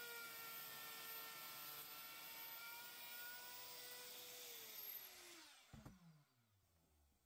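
Electric wood router running with a steady high whine, then switched off about four and a half seconds in and spinning down, its pitch falling away to silence.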